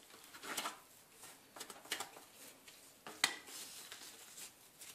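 Plastic dough scraper cutting through a ball of dough and knocking against the countertop: a few short scrapes and taps, the sharpest about three seconds in.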